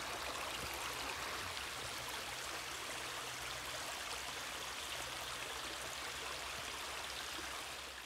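Small woodland creek running over flat rock ledges: a steady trickle and rush of water.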